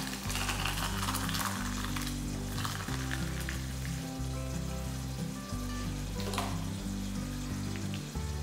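Rasam (thin lentil-and-tomato soup) poured from a pot into a steel bowl: a steady splashing hiss of liquid, over soft background music with low held notes.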